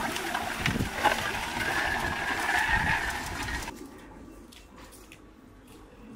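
Squeegees and brooms pushing wet flood mud along the pavement, a scraping, sloshing noise with some low thuds. About four seconds in it drops to a much quieter stretch with a few light knocks.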